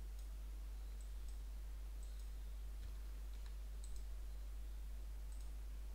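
Faint computer mouse clicks, about eight of them at irregular intervals, over a steady low electrical hum.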